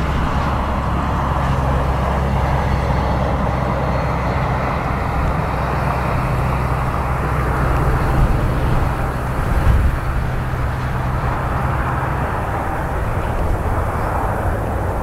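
Steady roar of a twin rear-engined regional jet landing and rolling out, mixed with wind rumbling on the microphone; it swells briefly a little past the middle.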